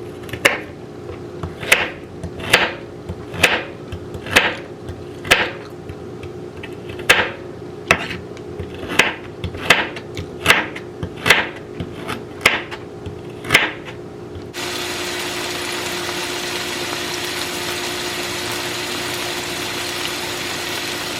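A series of about eighteen sharp knocks at an uneven pace of roughly one a second, followed by a steady hiss that starts abruptly about two-thirds of the way through.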